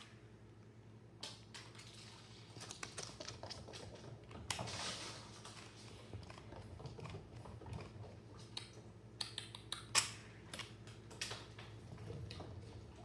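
Irregular light plastic clicks and clatters of small toy discs being pawed and knocked about, with a brief swishing rush about four and a half seconds in.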